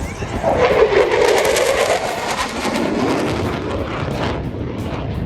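A Thunderbirds F-16 jet fighter making a loud pass, a rushing engine noise whose tone sweeps down and back up over a few seconds as it flies by.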